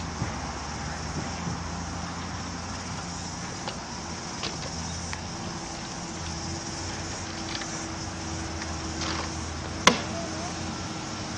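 Steady outdoor background noise with a low hum, a few light clicks, and one sharp knock about ten seconds in.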